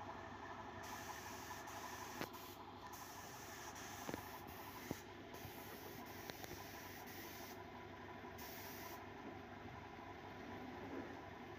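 Faint, steady hiss, typical of compressed air from a pneumatic stapler's air hose, with a few light clicks as the rubber edge strip is handled and cut.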